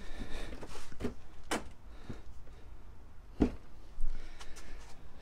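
A removed plastic front bumper cover from a Ford Flex being shifted and rolled over on a concrete driveway by hand. There are several separate knocks, the loudest about three and a half to four seconds in.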